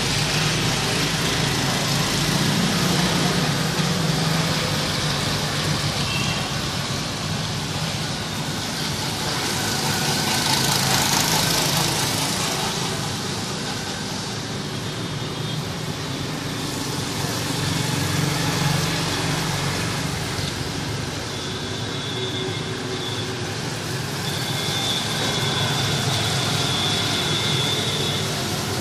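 Steady vehicle noise: a low hum under a broad hiss that swells and fades every several seconds, with a faint high whine in the second half.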